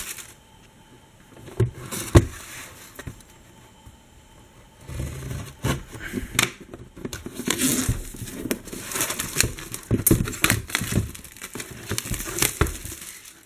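Plastic shrink-wrap being torn and crinkled as it is stripped off a cardboard box, in irregular scratchy bursts. A couple of sharp clicks come about two seconds in, then a quieter stretch, and steady crinkling and tearing picks up about five seconds in.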